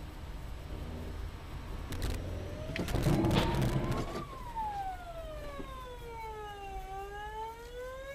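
Police car siren wailing: from about two and a half seconds in, it rises slowly in pitch, falls, and then rises again. Just before the siren peaks comes a loud, rough burst of noise with a few knocks. A low engine and road rumble runs underneath.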